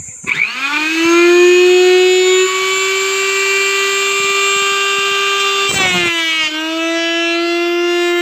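Table-mounted wood router switched on: its motor spins up with a fast rising whine and settles into a steady high whine. Near six seconds a brief rasp and a slight drop in pitch as the bit takes load, cutting a molding profile into a wooden strip.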